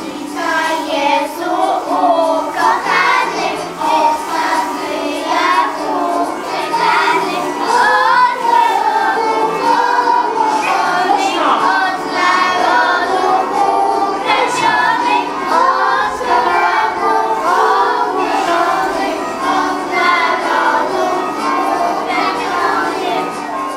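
A group of young children singing a Christmas carol together, with musical accompaniment.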